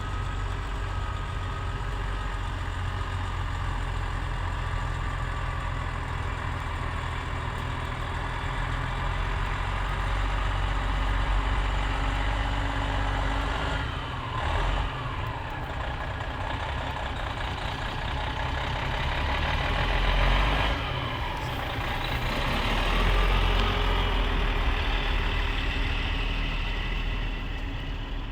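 Heavy truck engine running steadily, with its pitch dipping and rising again about halfway through and twice more later on.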